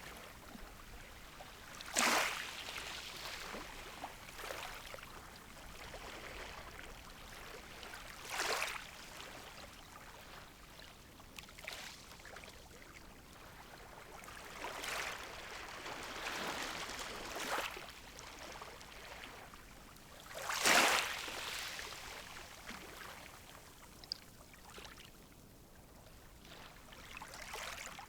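Gentle sea waves washing onto the shore, a soft hiss broken every few seconds by a wave breaking and washing in, the loudest about two-thirds of the way through.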